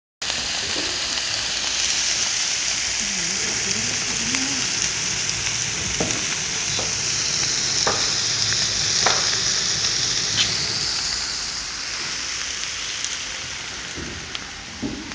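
Beef and pork sizzling as they grill over a wood fire, a dense steady hiss with a few sharp pops and crackles.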